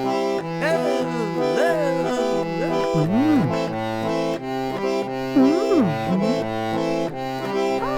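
Electric chord organ playing held reedy chords over a bass line that rocks between two notes. Over it a gliding pitched sound swoops up and down several times.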